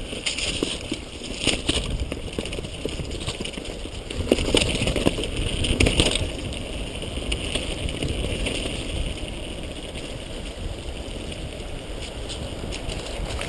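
Rushing water of a waterfall, a steady noisy wash with a low rumble and scattered clicks, louder for a couple of seconds about four seconds in.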